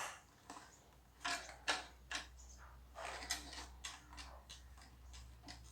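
Hands working a car's plastic turn-signal lamp housing and its wiring: irregular clicks, taps and short scrapes of plastic parts being handled and fitted.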